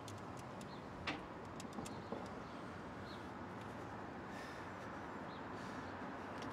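Steady city street background hum with a few sharp clicks about a second in, from payphone keypad buttons being pressed.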